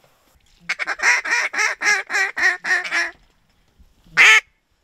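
Duck quacking: a fast run of about ten evenly spaced quacks lasting about two and a half seconds, then one louder single quack near the end.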